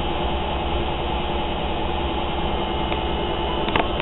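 Indesit domestic washing machine on its spin cycle, running with a steady drone of several held tones over a low pulsing rumble. It is noisy.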